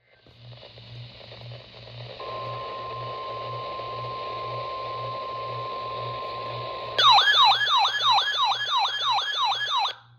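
Emergency alert tones received over a radio: hiss, then a steady single-pitch alert tone about two seconds in. About seven seconds in it gives way to a louder siren-like alarm of quickly repeating falling sweeps, about three a second, which cuts off near the end.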